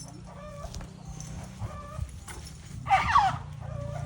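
An animal's short, squeaky calls repeated every second or so, with one louder, longer squeal about three seconds in.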